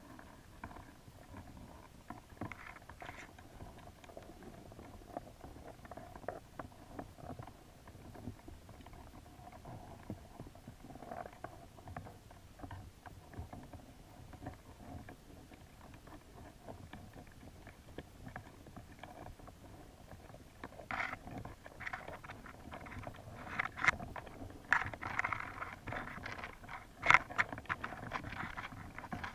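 Underwater sound heard through a camera's waterproof housing: a low rumble with scattered irregular clicks and crackles, getting busier and louder in the last several seconds.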